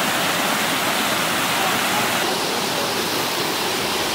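Water pouring over a low stone weir and splashing into the stream below: a steady rushing noise.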